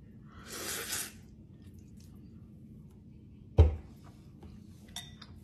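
Noodles slurped into the mouth in one airy, hissing draw lasting about a second. A sharp thump comes about three and a half seconds in.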